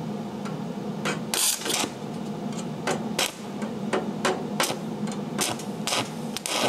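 Stick-welding arc being struck with a 1/8-inch Lincoln 7018 electrode: about a dozen short crackling bursts and taps as the rod is scratched and tapped on the steel, the arc catching briefly and dying out again, over a steady low hum.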